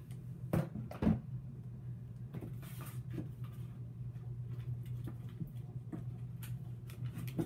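Two sharp knocks about half a second apart near the start, as a plastic bottle is handled at a table, then small clicks and scrapes of a plastic spatula stirring slime in a plastic bowl, over a steady low hum.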